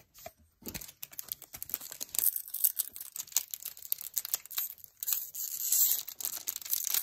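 Foil wrapper of a Pokémon trading card booster pack being torn open by hand, the foil crinkling and crackling, starting about a second in.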